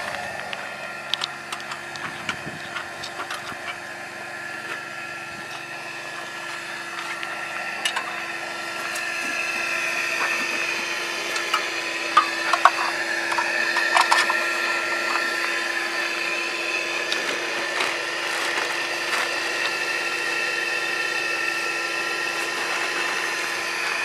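Small electric blower motor whining steadily as it draws gas through a charcoal gasifier, picking up a little about ten seconds in. Scattered clanks and rattles of the metal hopper lid and charcoal being handled.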